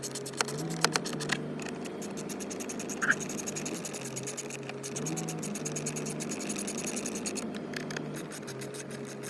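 Background music with a steady fast beat, with a few small clicks in the first second and a brief squeak about three seconds in as Torx screws are driven back into a glovebox latch.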